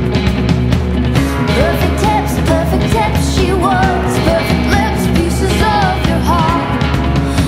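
Rock music with a steady beat and a sung vocal line.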